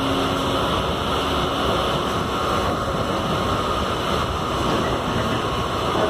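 Steady rumble and hiss inside the carriage of an air-conditioned Mumbai suburban local train: running noise of the train mixed with the air-conditioning, even throughout with no distinct events.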